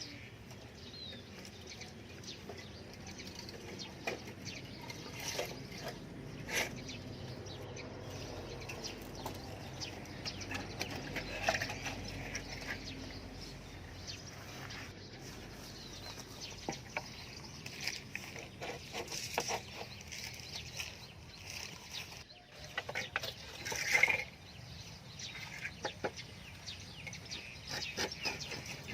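Chickens clucking against scattered clicks and knocks throughout, with one louder short sound about 24 s in.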